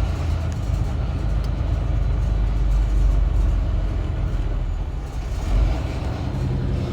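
Tractor-trailer's diesel engine and road noise heard from inside the cab: a steady low rumble as the truck pulls ahead in slow traffic.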